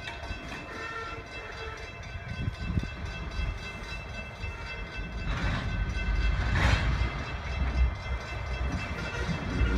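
Freight train of tank cars rolling slowly over the rails, a low rumble of wheels that grows louder about halfway through, with two short bursts of hiss in the middle.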